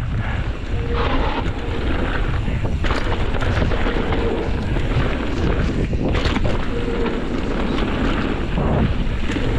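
Wind rushing over the microphone of a handlebar-mounted action camera on a mountain bike riding down a dirt trail, mixed with knobby tyres rolling on dirt and the bike clattering over bumps.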